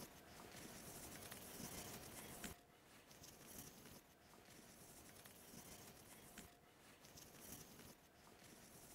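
Near silence: faint rubbing and patting of a cloth wiping Danish oil onto a wooden table frame, over room tone with a faint steady hum.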